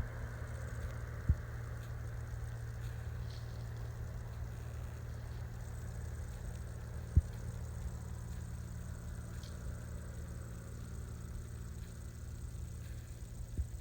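Cessna 182 piston engine and propeller droning steadily, with a couple of faint clicks.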